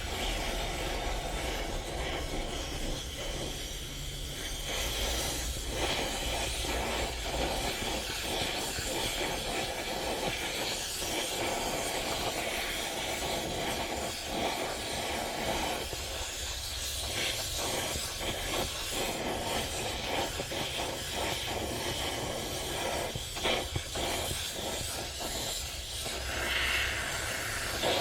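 Gas torch flame hissing steadily while steel T-nuts are heated for case hardening, with a few faint clicks.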